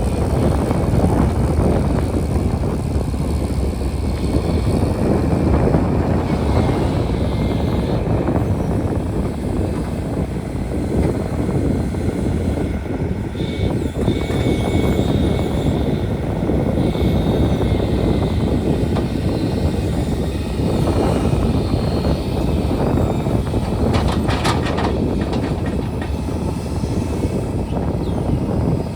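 JCB machine's diesel engine running steadily, with a few sharp clicks near the end.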